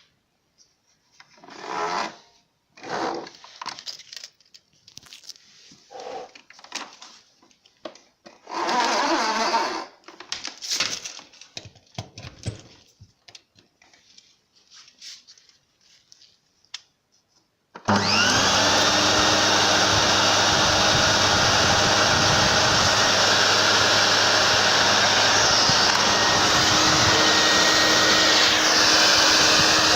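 Irregular knocks and rustles for the first half or so. Then, about two-thirds of the way in, a Melissa 1400 canister vacuum cleaner's motor switches on abruptly and runs at a steady, loud whine. The pitch of the whine dips briefly near the end.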